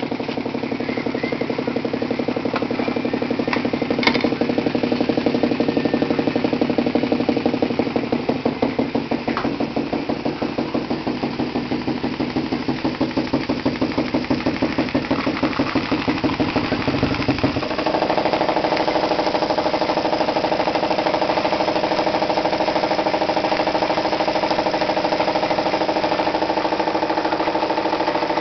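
Homemade grasshopper-type model steam engine (16/24 mm cylinder) running with a rapid, even beat. About two-thirds of the way through the sound changes suddenly: the low part drops away and a higher, steadier tone takes over.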